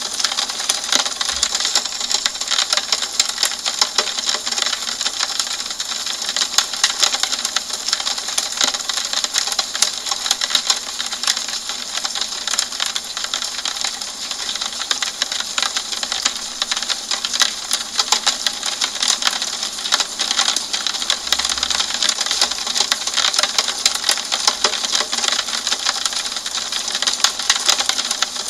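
Steady rain falling on a window pane: a dense, even stream of small sharp taps from the drops over a hiss.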